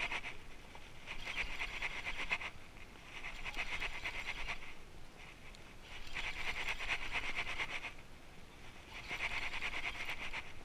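Baitcasting reel being cranked in four spurts of about a second and a half, each a fast whirring rattle of the turning gears, with short pauses between: a stop-and-go lure retrieve.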